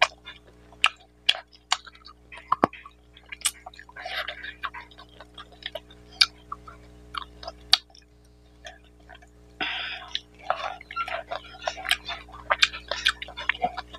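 Close-miked eating sounds: sharp wet clicks and smacks of a mouth chewing rice and mutton curry, mixed with short squishy rustles of fingers working the rice. A faint steady hum runs underneath.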